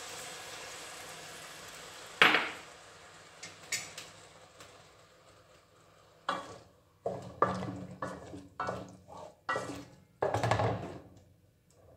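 Sauce sizzling in a hot aluminium pot, fading over the first two seconds, then a single sharp clunk. In the second half a wooden spatula stirs the carrot and chili strips in the sauce, knocking and scraping against the pot about eight times.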